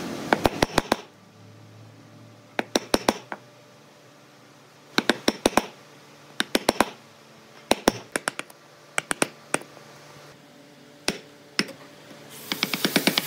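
Wooden mallet striking a wood chisel, chopping across the grain at the end of a groove in a board. The blows come in quick bursts of three to five sharp taps, a burst every second or two.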